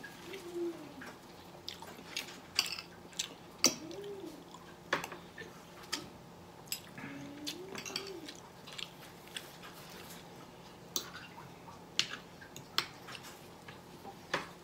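Fork and spoon clicking and scraping against a ceramic plate at irregular moments while a man chews his food, with a few short closed-mouth hums, one near the start, one about four seconds in and one about eight seconds in.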